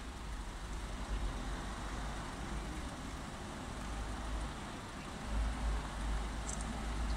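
Heavy truck hauling an oversized aircraft fuselage section, running slowly with a steady low diesel rumble and road noise, growing a little louder as it approaches.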